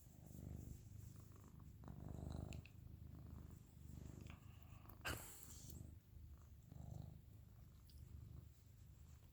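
Faint, low rumble from a resting pet, swelling and fading with each breath about every two seconds. A sharp click comes about five seconds in.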